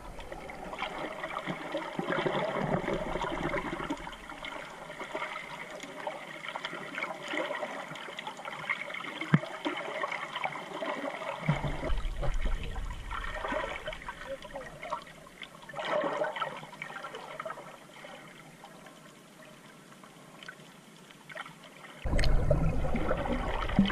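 Underwater ambience heard through a camera housing while snorkeling: a steady crackling hiss of moving water with many fine clicks. A low rumble of water comes in about halfway, and near the end there is a louder stretch of water sloshing as the camera nears the surface.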